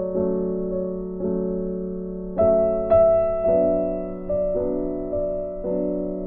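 Background piano music: slow notes and chords, each struck and left to ring out as it fades.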